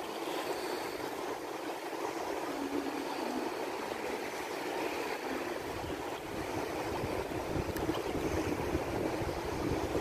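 Small waves of shallow sea water lapping and splashing close by, a steady rushing noise, with some gusts of wind on the microphone in the second half.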